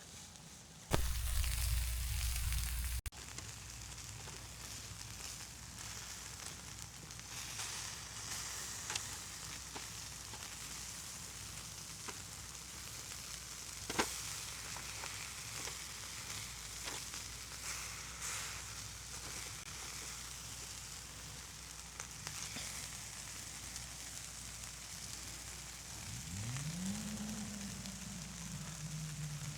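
Wax fire logs burning on a barbecue mesh, hissing steadily with a few sharp crackles and pops. A brief loud rumble comes about a second in, and near the end a cow moos, a long low call rising then falling, with a second call starting.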